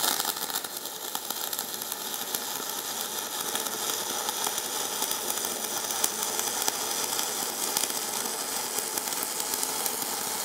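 Stick (MMA) welding arc burning a 2.5 mm Phoenix Grün T RR12 rutile electrode at about 100 amps. It starts abruptly as the arc is struck, then runs as a steady hiss with fine crackle, without interruptions.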